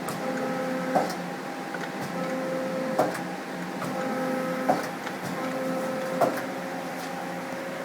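The 12-position turret of a 1998 Okuma Crown 762-SB CNC lathe indexing over and over: a motor whine lasting a second or two, then a sharp clunk as the turret locks, four times. The indexing is judged good.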